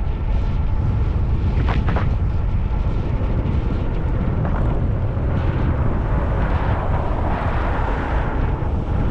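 Wind buffeting the microphone of a moving e-bike, a steady low rumble. A faint steady whine runs through the first few seconds, and a few clicks come about two seconds in.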